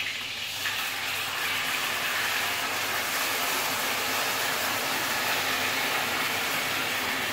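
Pieces of coated food frying in hot oil in a pan: a steady sizzle that grows louder a little under a second in.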